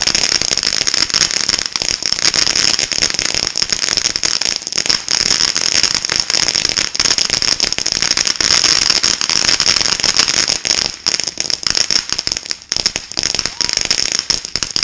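Ground fountain firework spraying sparks: a dense, steady crackling over a hiss, thinning into more separate pops in the last few seconds.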